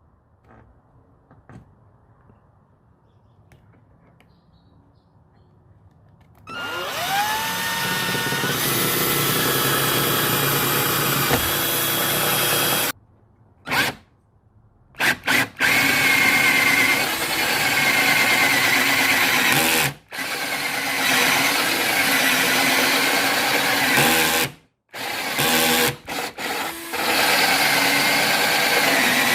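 Power drill with a hole saw cutting a hole through a vehicle door. It starts about six seconds in with a rising whine as the drill spins up, then runs in long stretches of cutting, with several short stop-and-restart bursts along the way.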